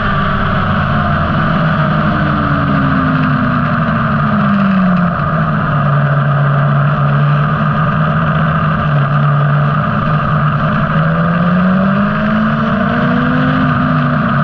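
Motorcycle engine heard onboard at track speed, with wind noise. The engine note falls as the bike slows into a corner, holds steady while it is leaned through the bend, then rises again as the throttle opens on the way out.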